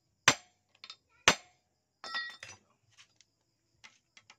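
Two sharp metal knocks with a lighter double tap between them, then a short ringing metallic clink and a few faint ticks: hand tools and small metal parts being tapped and set down while fitting a magneto and stator kit to an engine.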